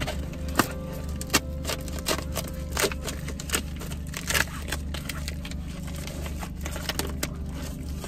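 Shiny red metallic gift wrap being pulled open and crumpled by hand, giving irregular crinkling with sharp crackles, over a steady low hum.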